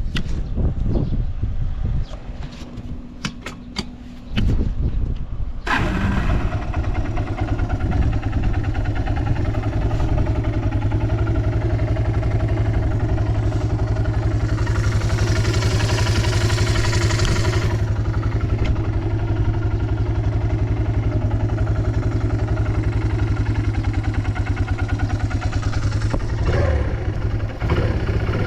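Yamaha Breeze 125 ATV's four-stroke engine catching about five seconds in after a few clicks and low knocks, then running steadily with an even beat. For a few seconds in the middle a hiss runs over the engine. It runs without abnormal noises.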